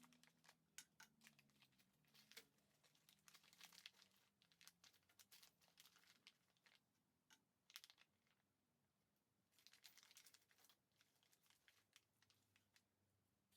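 Very faint rustling and crinkling with scattered light clicks: a small plastic hardware packet being opened and its parts handled.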